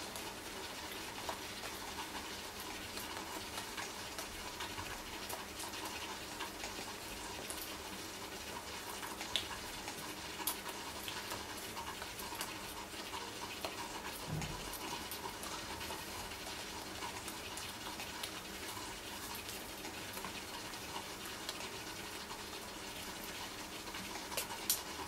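Steady low hiss of room tone with faint breathing and small scattered clicks, such as a person's hand and mouth noises while signing silently.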